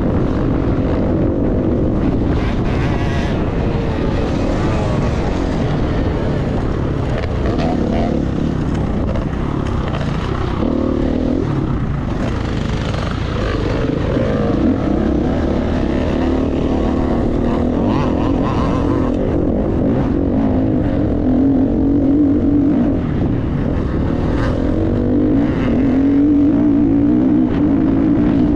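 Enduro dirt bike engine revving up and down as the bike is ridden, its pitch rising and falling continuously.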